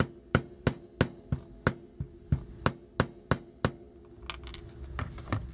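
Small hammer tapping a glued connector peg into a toy fist, sharp, even taps about three a second. The taps stop about two-thirds of the way through, followed by a few lighter, irregular ones.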